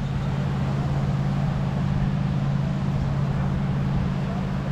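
A steady low mechanical hum that holds one pitch throughout, under a constant hiss.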